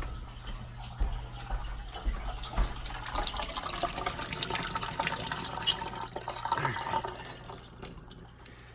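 Water rushing through household plumbing lines, swelling midway and fading toward the end, over a steady low hum that stops about seven seconds in.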